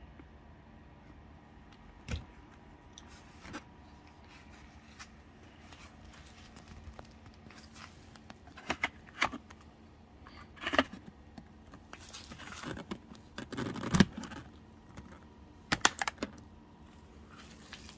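Hands handling an AGV full-face motorcycle helmet: scattered clicks, taps and rubbing on its plastic shell and visor. The loudest knock comes about three-quarters of the way through.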